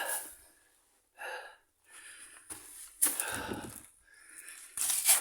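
A person breathing heavily and raggedly, out of breath: about half a dozen loud wheezing breaths and gasps, roughly a second apart.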